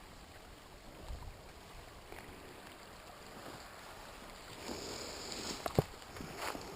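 Footsteps and rustling of brush while someone pushes through thorny bushes, growing louder near the end, with a couple of sharp clicks like twigs snapping.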